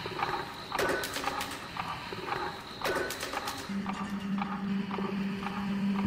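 Electronic show soundtrack: a regular knocking beat, about two knocks a second, with scattered sharp clicks over a held high tone. The high tone stops a little past halfway, and a steady low drone comes in.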